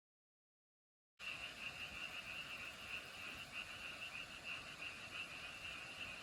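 Dead silence for about a second, then a steady high-pitched chorus of frogs calling begins and carries on without a break.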